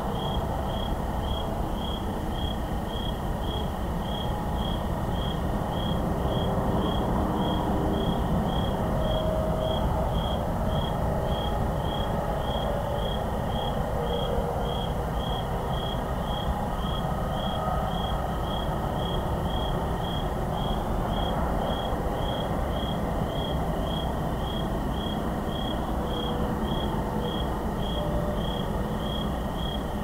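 Crickets chirping: one high, evenly spaced chirp repeating about twice a second, over the steady low rumble of distant highway traffic.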